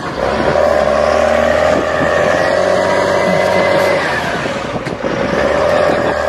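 John Deere tractor's diesel engine working hard as it pulls a dump trailer through deep mud, its note rising about two seconds in and dropping back a little after four seconds.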